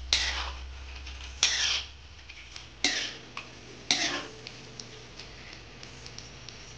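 Metal spoon scraping and stirring a thick stew in a wide metal wok: four loud scrapes about a second apart, then a few light ticks.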